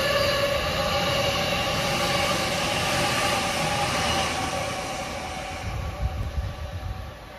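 A train running past, with rail noise and a steady whine, fading away from about four seconds in.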